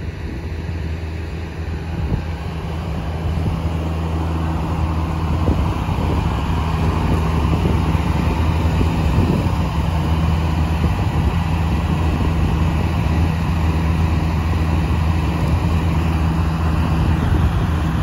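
The engine driving a Foley Belsaw circular sawmill runs steadily at constant speed, with no log being cut.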